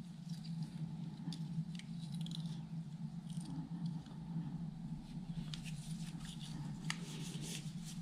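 Faint rustling and scattered light clicks of hands handling a braided wrist strap and a small plastic remote shutter, over a steady low hum.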